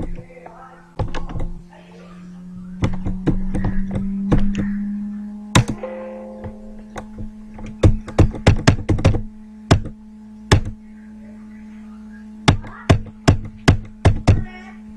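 Irregular sharp clicks and knocks, some single and some in quick runs of several, the densest about eight seconds in and again near the end, over a steady low hum.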